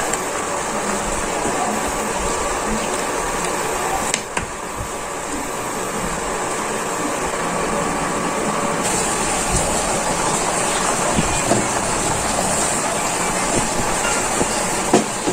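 A pot of fish broth with taro and winged beans boiling hard on the stove, a continuous steady bubbling hiss, with a short sharp tap near the end.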